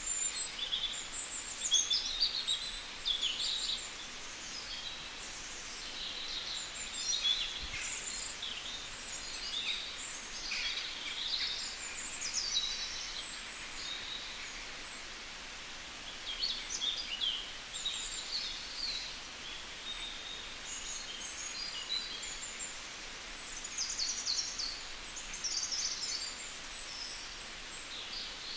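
Small birds chirping and singing in quick, overlapping high-pitched phrases over a steady outdoor hiss, with a couple of quieter stretches.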